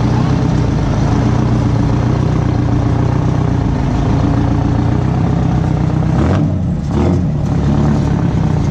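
Diesel engine of a GMC rat-rod pickup, open-stacked, running with a steady note. It eases off briefly about six and a half seconds in, then picks back up.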